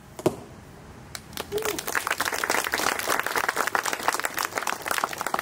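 Crowd applauding, with scattered voices; the clapping swells in about two seconds in and keeps up densely, answering a greeting called out to a sorority.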